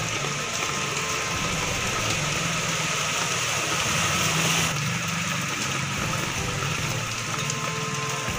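Rain falling steadily on a flooded street, its drops splashing into standing water, over a steady low engine-like hum.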